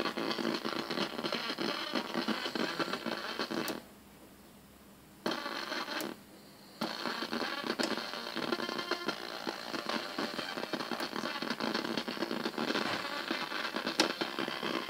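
Elta radio-cassette player crackling and scratching through its speaker instead of playing clean sound, cutting out to near silence twice, once for over a second and once briefly: the fault the owner calls "truščanje", noisy crackling.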